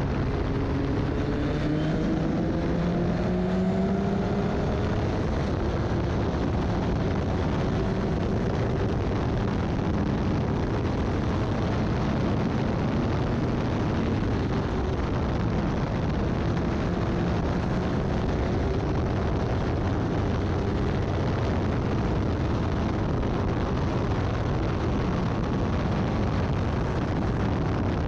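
Formula Ford race car engine running at speed, its note climbing over the first few seconds, under a dense rush of wind and road noise.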